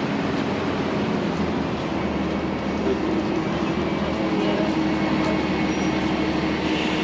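Steady running noise of a motor coach (bus) heard from inside the cabin: a low engine drone and road noise, with a steady hum that comes in about two seconds in.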